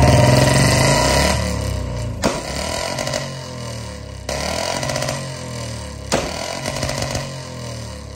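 Royal Enfield Bullet's single-cylinder engine revved in throttle blips through a very loud aftermarket exhaust, the bike converted from BS6 to BS3 tune. Each rev surges and falls away, and a sharp backfire pop cracks on the overrun about two seconds after each blip.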